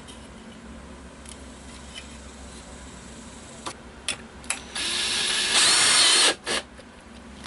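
Cordless drill driving a self-tapping sheet metal screw through thin sheet metal into a wooden block. There are a few light clicks, then the drill runs for about a second and a half with a rising whine, louder near the end, and stops.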